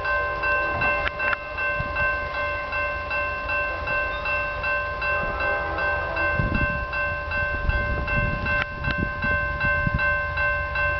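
Railroad grade crossing bell ringing in an even, repeating rhythm, the crossing's warning signal activated by an approaching train, with low wind rumble on the microphone.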